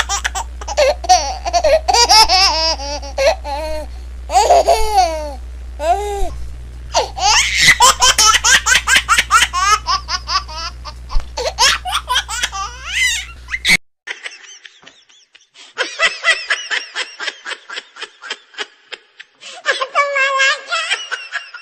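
Laughter, including a baby's, in loud repeated bursts over a steady low hum. It cuts off abruptly about two-thirds of the way through, and a quieter run of quick ha-ha laughs follows near the end.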